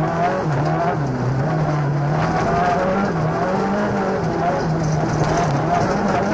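Rally car engine heard from inside the cockpit at speed, its revs rising and dropping again and again through gear changes and corners, over steady road noise.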